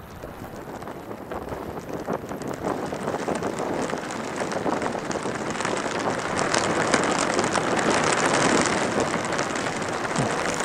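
Heavy rain and gusting wind battering a campervan: a dense patter of drops over a rushing wind, growing louder through the first several seconds.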